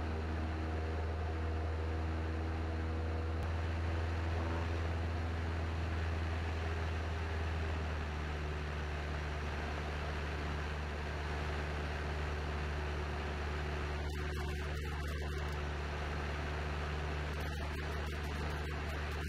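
Steady drone of a Cessna 172N's four-cylinder Lycoming engine and propeller in cruise flight, heard from inside the cockpit as a low hum over a wash of air noise. The tone shifts slightly about eight seconds in.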